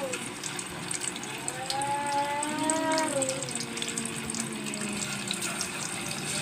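Tofu slices frying in hot oil in a pan: a steady sizzle with many small crackles. From about a second and a half in, a long wavering pitched sound rises and falls in the background for under two seconds.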